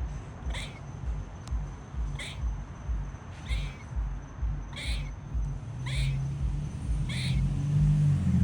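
Squirrel barking: about six short, sharp calls roughly a second apart, the kind of call squirrels usually give as an alarm or warning. A low hum underneath grows louder near the end.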